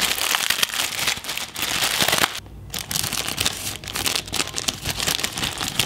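Sealed plastic Maggi noodle packet crinkling and crackling as the dry noodle block inside is crushed into pieces by hand, with a short pause about two and a half seconds in.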